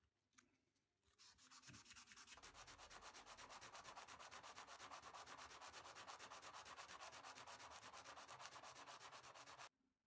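Faint, quick, even back-and-forth strokes of a small metal part rubbed by hand on a sheet of sandpaper, several strokes a second. The sanding starts about a second in and stops suddenly near the end.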